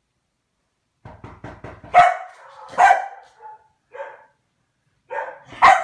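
A Komondor barking several times in two bouts, with the loudest barks about two and three seconds in and again near the end. A few quick taps come just before the first bark.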